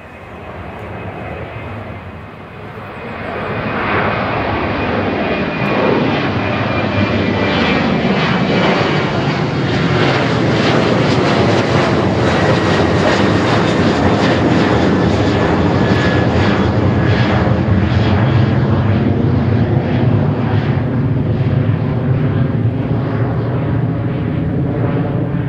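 A Boeing 737-800's twin CFM56-7B turbofan engines at takeoff and climb power as the airliner passes overhead. The jet roar builds over the first few seconds, then stays loud, with a fan whine that slowly falls in pitch as the aircraft goes by and away.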